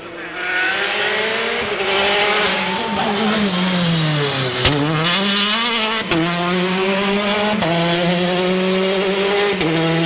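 Rally car engine at full throttle. The revs rise, then sink as the car slows into a bend, and one sharp exhaust bang follows. It then accelerates away through three upshifts, each one a sudden drop in pitch followed by a climb.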